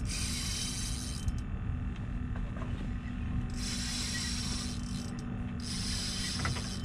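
Fishing reel whirring in three spells of about a second each as line is reeled in on a bent rod.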